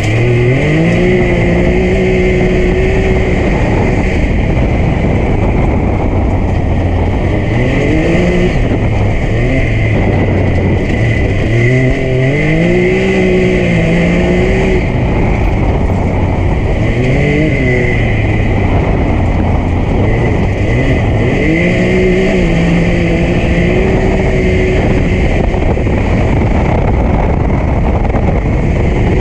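Can-Am Maverick X3 XRS Max side-by-side under way, its turbocharged three-cylinder Rotax engine revving up and holding about five times, easing back between pulls, over a steady high whine.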